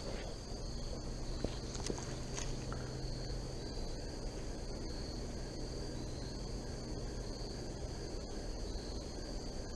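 Insects, crickets or similar, trilling steadily on two high pitches, over a low steady rumble. A few light clicks in the first couple of seconds.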